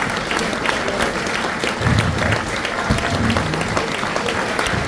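Concert audience applauding steadily after a song, with two brief low sounds rising above the clapping about two and three seconds in.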